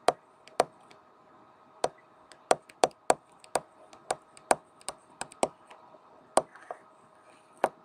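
Stylus tapping and clicking against a tablet while handwriting a note: a dozen or more sharp, irregular taps, over a faint steady hum.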